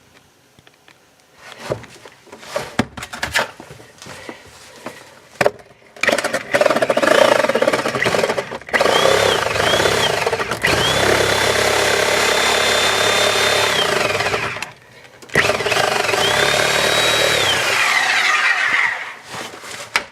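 Handheld power tool cutting away the failed patch on a cracked drain pipe. A few scattered knocks and clicks come first, then about six seconds in the motor starts and its whine rises in pitch. It runs steadily for a few seconds, stops briefly, then runs again and winds down near the end.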